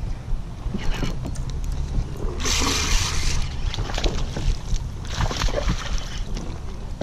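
Strong wind buffeting the microphone in a low, constant rumble, with water slapping and splashing around a kayak, loudest in two bursts about two and a half and five seconds in.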